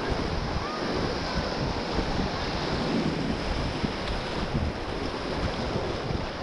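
Rushing white water of a river rapid, a steady noise, with wind buffeting the microphone.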